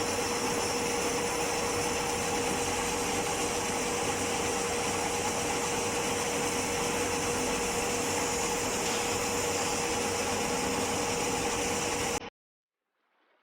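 Metalworking lathe running steadily: a constant machine hum with a steady tone and a wash of noise over it, cutting off abruptly near the end.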